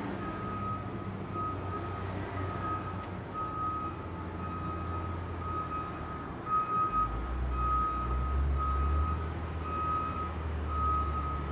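A vehicle's reversing beeper sounding steady short beeps, a little over one a second, over a low engine rumble that gets louder about seven seconds in.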